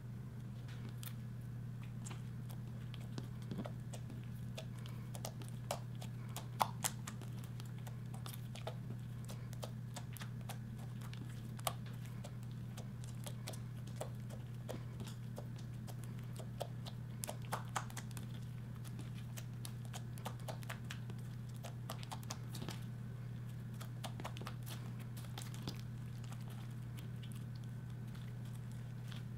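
Hands kneading, folding and stretching slime, with scattered short sticky clicks and little pops at an irregular pace, over a steady low hum.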